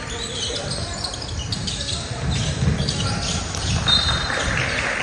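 Basketball shoes squeaking on a hardwood court during play: short, high squeaks scattered through, with one clear squeak about four seconds in, among low thuds and players' voices.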